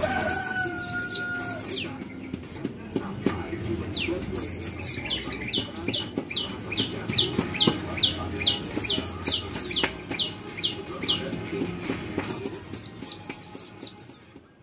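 White-eye (pleci) giving rapid 'cit cit' calls: clusters of short, high, downward-slurred notes, with a run of evenly spaced single notes, about two to three a second, in the middle, over a low steady hum.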